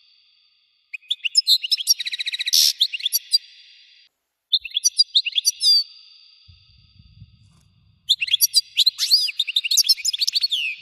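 European goldfinch song: three phrases of rapid twittering chirps and quick pitch glides, one with a fast trill, separated by short silences.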